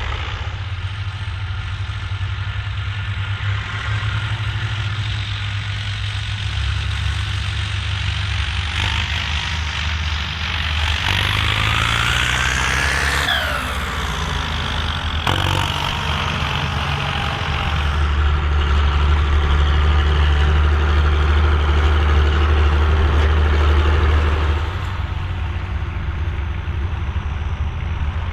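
Volvo BM farm tractor's diesel engine running while ploughing, its note shifting up and down in steps, with a gliding whine around the middle.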